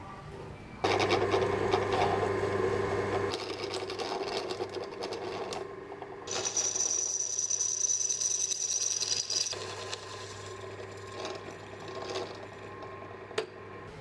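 Drill press switched on about a second in, running with a steady hum as its bit drills through a small metal strip held in locking pliers. A high-pitched whine comes through in the middle while the bit cuts, and the motor hum stops at the very end.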